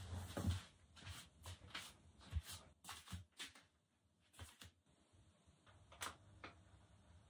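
Light clicks and knocks of kitchen utensils and containers being handled while cooking. The strokes come irregularly, a dozen or so in the first few seconds, then only a couple more.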